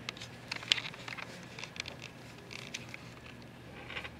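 Light clicks and taps from handling a small stone specimen and a UV flashlight, with one sharper click about three quarters of a second in, over quiet room noise.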